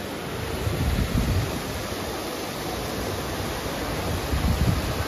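The Trevi Fountain's water cascading over its rocks into the basin: a steady rushing hiss. Low gusts of wind on the microphone about a second in and near the end.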